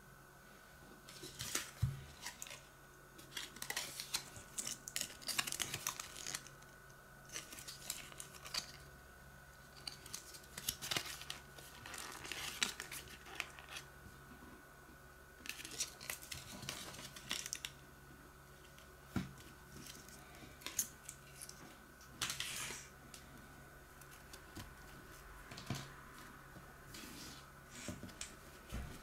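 Toy packaging being handled by hand: irregular rustling and crinkling of plastic and card, with a few sharp clicks between stretches of quiet.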